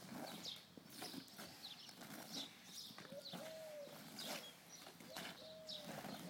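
Faint, regular scuffs of gloved hands and boots on concrete as a firefighter in breathing apparatus crawls on all fours. A short tone that rises and falls comes twice in the second half.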